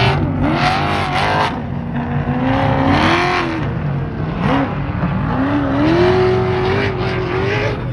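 Off-road trophy-truck engines racing past, revving up and down, with more than one truck's pitch rising and falling at once.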